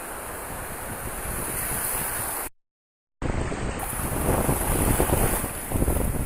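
Shallow surf washing in, with wind buffeting the microphone. The sound cuts out completely for about half a second, then returns louder and closer, with the irregular splashing of a small dog wading through the shallow water.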